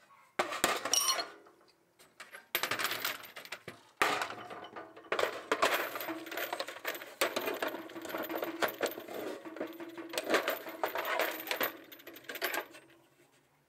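Steel sockets and a ratchet clinking and rattling against each other and the metal tool box as they are handled. There are two short bursts, then steady clatter from about four seconds in until near the end.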